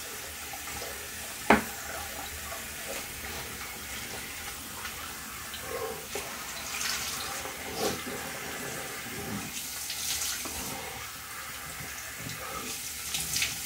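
Bathroom tap running into the sink, with uneven splashing as a face is rinsed with water. A sharp knock comes about a second and a half in.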